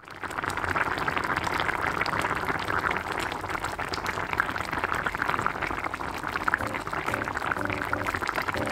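Spicy pork soft tofu stew boiling in a pan: a dense, steady stream of bubbling and small pops in the broth, fading in at the start. A faint melody comes in near the end.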